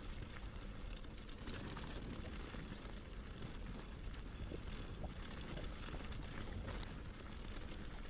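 Mountain bike rolling down a gravel track: tyres crunching over loose stones and leaves with scattered small clicks, under a steady low wind rumble on the camera microphone.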